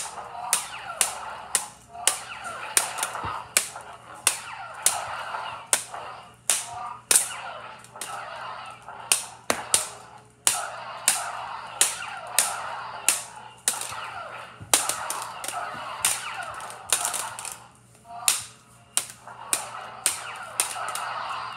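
Toy lightsabers clashing: sharp plastic clacks, irregular at about two a second, as the hilts strike each other. A wavering mid-pitched buzz rises and falls between the hits.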